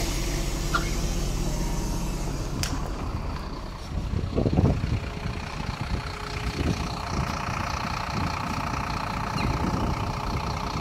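MAZ-103 city bus engine running steadily, with a louder surge about four seconds in before settling back to a steady run.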